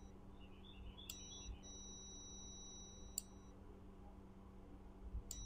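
Digital multimeter's continuity beeper giving a steady high beep whenever the micro switch is pressed closed. It cuts off just after the start, sounds for about two and a half seconds from about a second in, and starts again near the end, with faint clicks where it starts and stops. The beep signals continuity through the closed normally-open micro switch.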